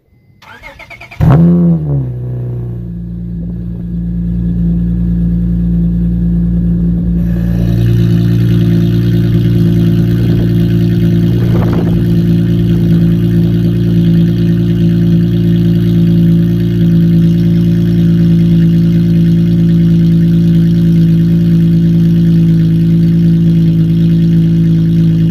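2009 Honda Accord coupe's 3.5-litre V6 cold-starting through a straight-piped exhaust with the catalytic converters and muffler deleted. It cranks briefly, catches with a loud flare, then settles into a steady fast idle. About seven seconds in the idle steps up, louder and fuller, and stays there.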